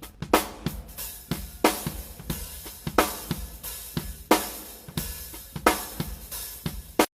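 Drum kit played in a steady groove: bass drum, snare and hi-hat, with loud cymbal-and-drum accents about every second and a half. The playing cuts off abruptly near the end.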